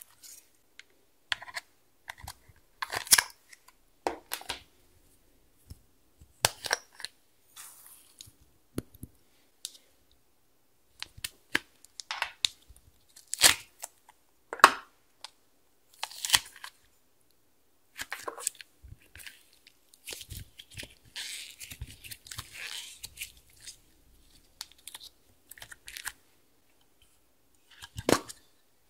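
Slime and small plastic slime containers being handled over a glass dish: scattered short clicks, taps and crackly squishes, with a longer stretch of crackling rustle about two-thirds of the way through.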